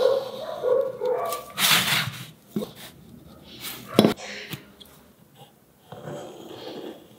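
Pencil scratching lines onto a beech block, with short strokes of scraping, and one sharp knock of a metal combination square set down on the wooden bench about four seconds in. Near the end comes a softer, longer scrape as a compass scribes an arc on the wood.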